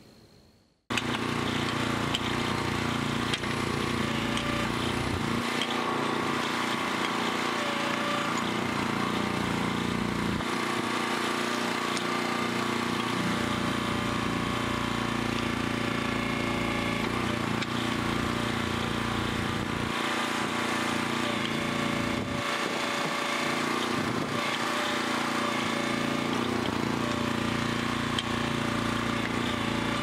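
Engine of a Central Machinery backhoe running steadily while its hydraulic bucket digs out around a tree stump. It starts suddenly about a second in.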